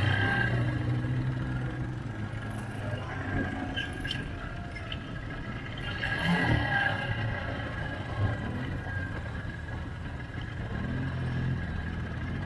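ATV (quad bike) engine running at low speed on a downhill trail, with a steady high whine over it. It picks up briefly about six seconds in.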